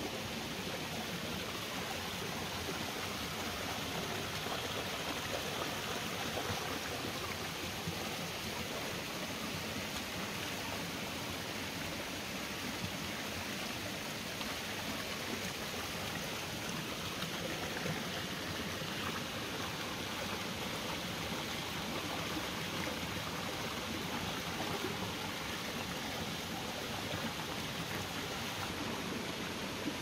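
Shallow, rocky mountain stream running over stones: a steady, even rush of water.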